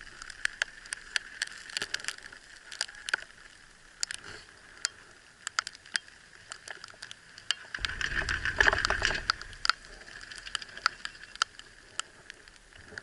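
Sleet pellets ticking irregularly against the camera and clothing over a steady hiss, with a louder low rushing rumble about eight seconds in.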